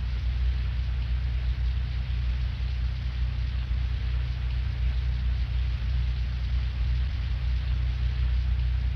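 Film soundtrack's steady low industrial rumble with an even hiss over it: a droning ambient soundscape.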